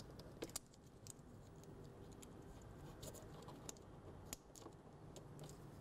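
Near silence with several faint, sharp clicks and light scratching as fingers push small electrical connectors onto the pins of a trunk switch.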